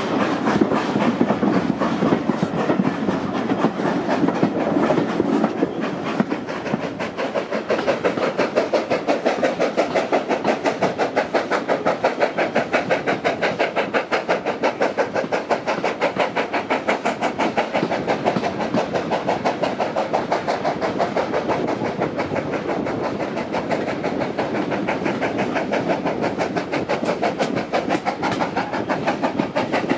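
Ivatt Class 2MT 2-6-0 steam locomotive working a train, with a fast, even rhythm of beats that runs without a break.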